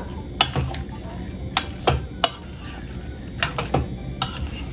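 Metal spoon clinking against an enamel bowl while turning cauliflower florets in thick batter, a string of irregular clinks a few tenths of a second to a second apart.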